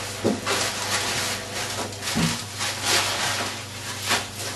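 A wrapper crinkling in about seven short bursts as it is handled, over a low steady hum.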